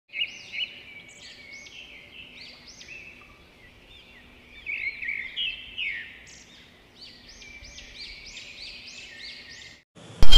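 Rapid bird chirps, short arched sweeps repeating a few times a second, over faint hiss. A loud burst of music starts right at the end.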